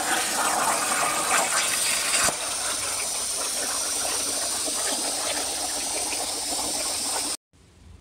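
Hypertherm Powermax85 plasma torch cutting 3/16-inch mild steel: a loud, harsh hiss of the arc that ends about two seconds in. A slightly quieter steady hiss of air still blowing through the torch follows, then cuts off abruptly near the end.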